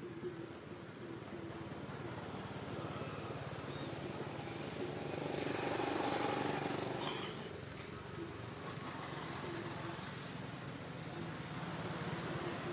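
A steady motor hum, like a motor vehicle's engine, that grows louder about halfway through and then fades back.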